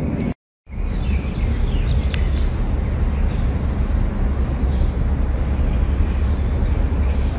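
Steady outdoor noise dominated by a heavy low rumble of wind on the microphone, after a brief drop to silence just after the start.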